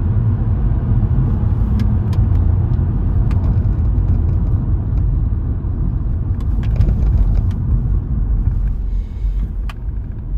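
Subaru Legacy Outback with a flat-six engine running, a steady low rumble of engine and road noise with a few light ticks.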